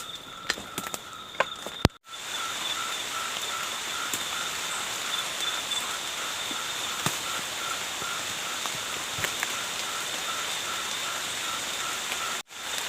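Forest ambience: a steady wild chorus with one pulsing call repeating about three to four times a second and a steady high trill over an even hiss. A few sharp clicks come in the first two seconds, and the sound cuts out briefly twice, where the video is edited.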